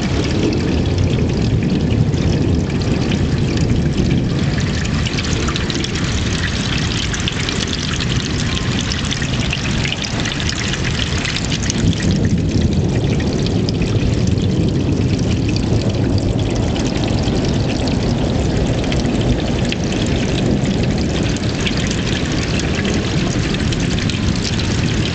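Heavy rain pouring down steadily in a thunderstorm: an even, unbroken hiss.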